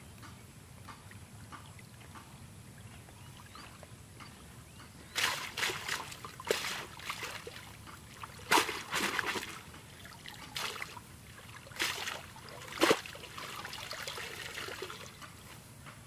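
Shallow muddy water splashing and sloshing as a woven bamboo eel trap is moved and lifted out, several splashes from about five seconds in. Water trickles off the raised trap near the end.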